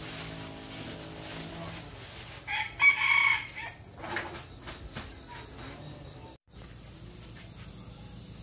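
A rooster crows once, about two and a half seconds in, for about a second, over a steady high-pitched insect drone.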